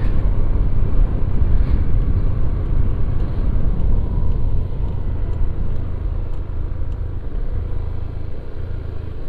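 Honda Beat automatic scooter riding downhill, its small single-cylinder engine and the road and ride noise making a steady low rumble that eases slightly near the end.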